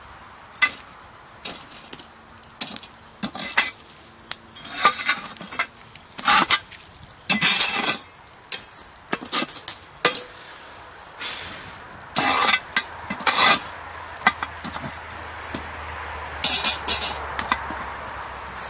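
A metal poker scraping and knocking against a cast-iron Dutch oven lid as ash and embers are cleared off it, in irregular strokes with clinks of metal on iron.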